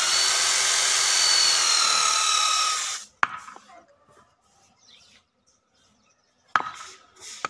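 Corded electric drill boring a hole into the wooden body of a hand plane, running steadily with a faint rising whine for about three seconds and then stopping. Two sharp clicks follow, the first just after the drill stops and another near the end, with faint handling noise between them.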